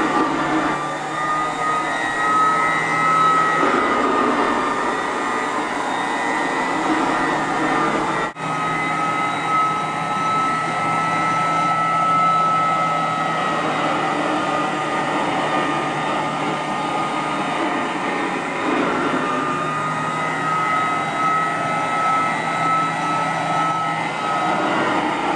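Antique Clements Manufacturing Cadillac upright vacuum cleaner running steadily, its motor and fan giving a constant whine that wavers slightly in pitch. The sound drops out for a split second about eight seconds in.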